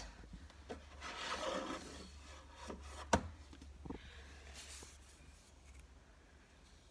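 Handling noise from a handheld phone: rubbing and scraping against hand and clothing as it is moved about, with small clicks and one sharp knock about three seconds in.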